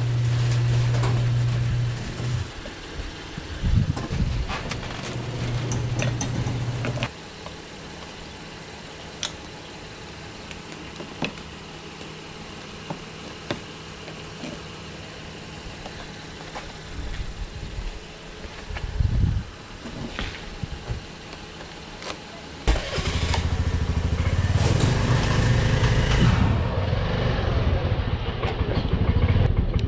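Small motorcycle engine. A steady low engine hum stops about seven seconds in, then a quieter stretch with scattered clicks follows, and about 23 seconds in the engine starts and runs steadily to the end.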